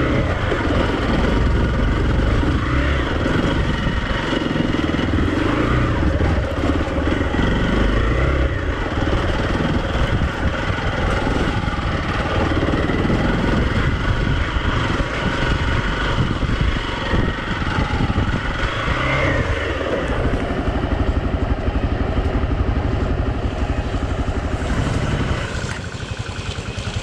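Hero XPulse 200 motorcycle's single-cylinder engine running steadily while riding an off-road dirt trail.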